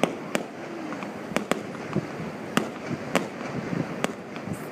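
Fireworks going off: a string of sharp bangs at irregular intervals, about eight in under five seconds.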